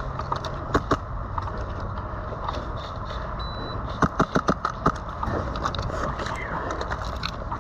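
Airsoft guns firing: a few single shots in the first second, then a quick string of about six shots around four seconds in, over a steady low rumble.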